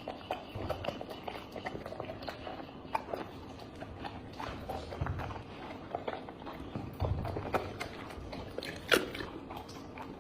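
A dog eating a moist mixed meal of meat, yogurt and egg, chewing and biting with irregular wet smacks and clicks.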